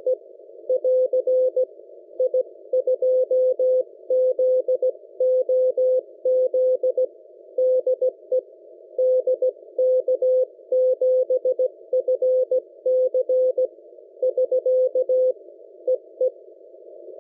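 Morse code (CW) received on the 600 m amateur band at 472 kHz through a software-defined radio in CW mode: a steady tone of about 500 Hz keyed in dots and dashes over a narrow band of receiver hiss. The keying stops near the end, leaving only the hiss.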